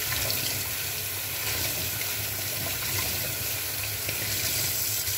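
Kitchen tap running steadily into a stainless steel sink, the stream splashing over a sponge being rinsed under it.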